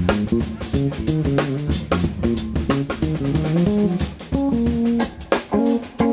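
Jazz trio of guitar, bass and drum kit playing live: a line of plucked guitar and bass notes over steady drum hits.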